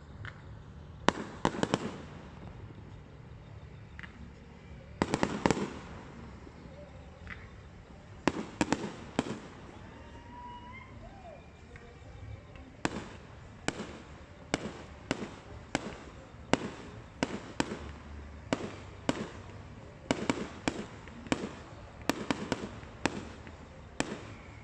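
Aerial firework shells bursting: sharp bangs in scattered clusters at first, then a steadier run of about one to two bangs a second through the second half.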